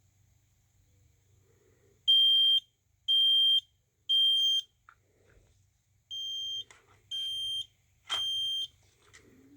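Smoke alarm's piezo horn sounding on test: three high half-second beeps about a second apart, a pause, then three more, the second set quieter. This is the temporal-three evacuation pattern.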